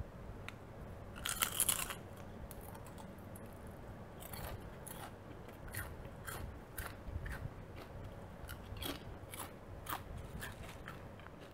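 Potato chips (Lay's Classic) crunching as they are bitten and chewed: one loud crunch of a bite about a second and a half in, then a run of short, crisp crackles of chewing.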